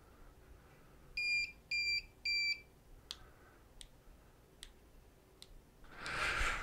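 Three short, high electronic beeps from the Solax Transformer mobility scooter's key-fob receiver, the signal of a step in pairing the remote. A few faint clicks follow.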